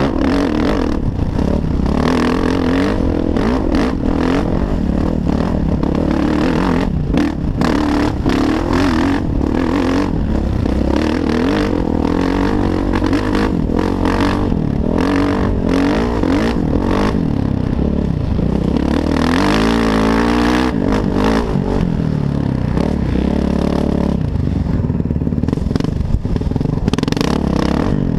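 Kawasaki KX450F dirt bike's single-cylinder four-stroke engine running under throttle, its pitch rising and falling, with a sharp rev up and back down about two-thirds of the way through. Frequent knocks and rattles come from the bike on the rough trail, heard from the rider's helmet.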